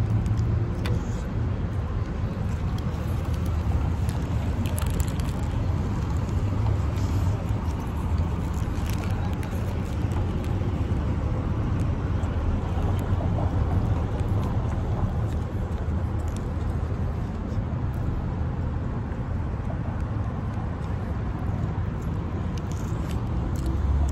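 Steady low rumble of road traffic, with a few faint rustles of a paper burger wrapper.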